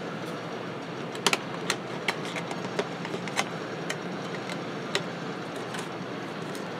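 Scattered small sharp clicks and taps of metal clips and small screen parts being handled and pried open, over a steady background hum and hiss.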